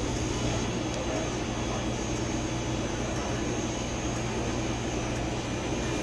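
Steady low mechanical hum under a constant rushing noise.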